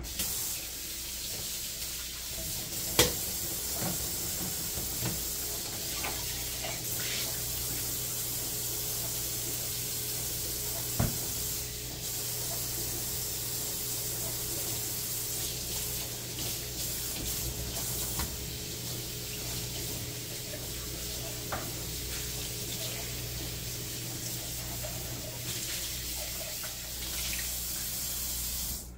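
Water running steadily from a kitchen tap, with a few sharp clicks, the loudest about three seconds in; the running stops abruptly at the end.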